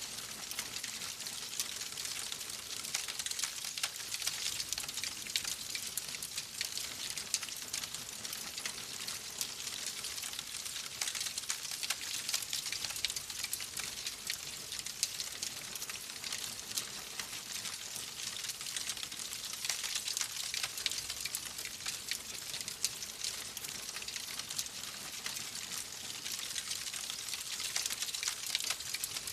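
Wood fire in a fireplace crackling steadily: a dense stream of small pops and snaps over a soft hiss.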